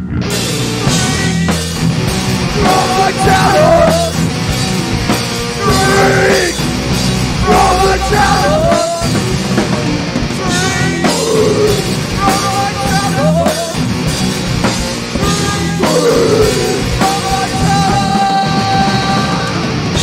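Loud rock music with a drum kit beat and a bending melodic line.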